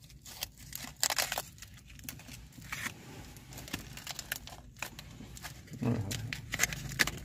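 Aluminium foil being unwrapped by hand, crinkling and crackling in a string of irregular rustles as the wrapping is peeled open.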